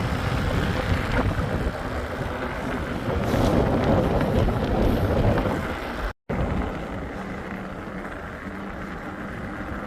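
Wind rushing and buffeting on the microphone, louder between about three and six seconds in; it breaks off abruptly about six seconds in and goes on quieter and steadier.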